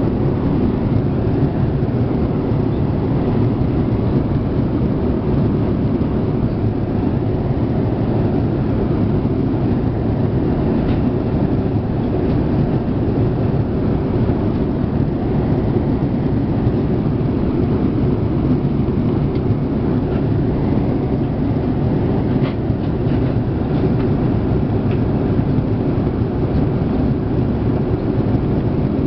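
Steady cabin noise of a Boeing 787-8 airliner: an even, loud low rumble of engines and airflow, with no change in pitch or level.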